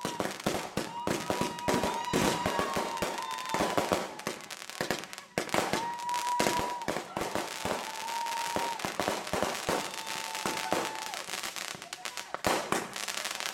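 A fireworks finale board firing: rapid, overlapping bangs and crackles in quick succession. Several long, steady high tones sound over them.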